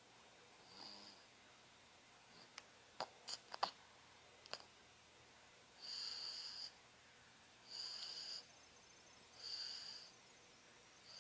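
A 9-month-old baby snoring softly, with a high-pitched tone on each breath; in the second half the breaths come about every two seconds. A few sharp clicks come a few seconds in.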